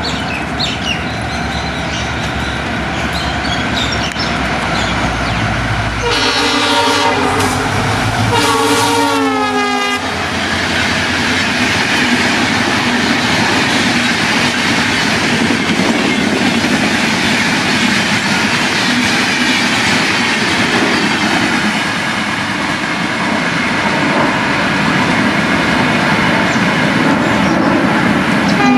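WDP4B EMD diesel locomotive approaching with its engine running, then sounding its multi-tone horn in two blasts about six seconds in. The second blast's pitch drops as the locomotive passes. The express train's coaches then rush past at speed, a steady rolling din.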